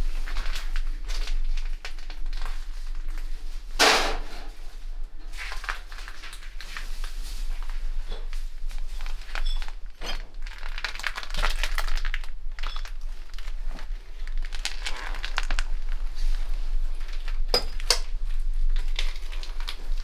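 Footsteps crunching and scuffing over debris and broken crockery on a floor, with scattered clicks and knocks. There is a louder knock about four seconds in and another near the end.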